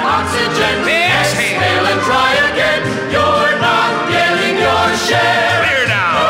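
Orchestral music with singing voices, played from a 45 rpm vinyl single on a turntable. Steady bass notes under sliding melody lines, with a long falling slide near the end.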